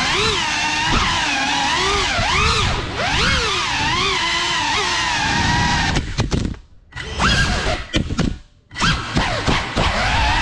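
Cinelog 35 ducted cinewhoop FPV drone on 6S, its motors and props whining, the pitch rising and falling quickly with the throttle. About six seconds in the sound twice drops almost to silence, with sharp knocks around the gaps.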